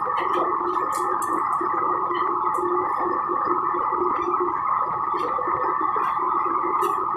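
Steady roar of commercial wok burners' gas flames, with scattered light clinks of metal utensils and bowls.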